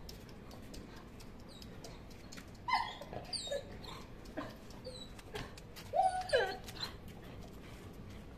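Golden retriever puppies whimpering and yipping in short, high cries that fall in pitch: a cluster about three seconds in and another about six seconds in.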